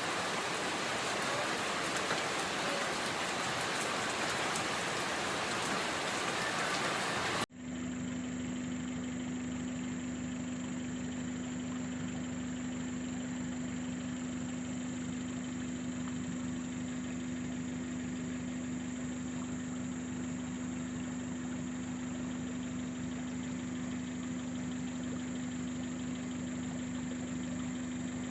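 Steady rain for about seven seconds, then an abrupt cut to a steady mechanical hum with one strong low tone that holds unchanged, like an idling engine.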